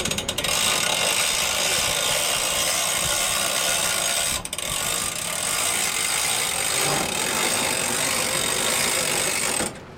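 Evinrude E-TEC outboard motor running hard, its propeller churning the water into a steady rushing wash. The sound dips briefly midway and cuts off suddenly near the end.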